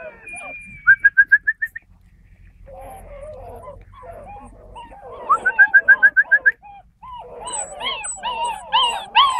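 Young Great Dane puppies whimpering and yelping on and off, the calls growing louder and coming two or three a second near the end. Twice a short, fast trill of evenly spaced high notes cuts through, about a second in and again after five seconds.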